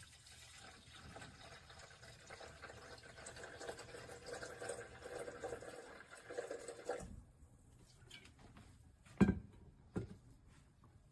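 Water pouring into a container for about seven seconds, growing louder before it stops suddenly. Two sharp knocks follow, less than a second apart, the first the loudest sound.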